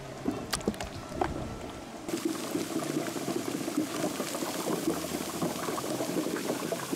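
Cut potato sticks deep-frying in hot oil in a basket deep fryer: a steady bubbling, crackling sizzle that sets in about two seconds in, after a few light clicks.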